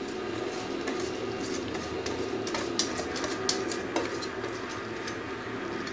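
A utensil scraping and knocking against a mixing bowl as thick cake batter is scraped out into a baking tray, with a few sharp clicks between about two and a half and four seconds in. A steady low hum runs underneath.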